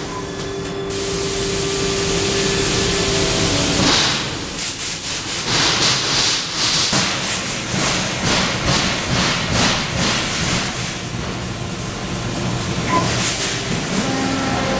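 Trumpf fiber laser cutting machine at work on sheet steel: a steady machine hum with a held tone for the first few seconds, then the cutting head's hiss starting and stopping rapidly over and over as it cuts.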